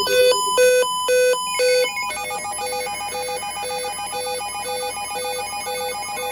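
Electronic alert tones: a quick run of alternating high and low beeps, then about one and a half seconds in a held tone with short beeps repeating about twice a second, like a ringtone.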